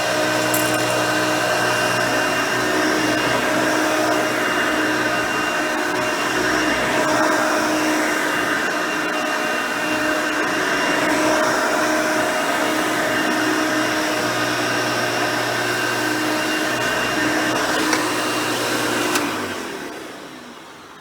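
Hoover Elite 350 upright vacuum, with a 5-amp motor and 9-blade fan, running steadily. Near the end it is switched off with a click and winds down.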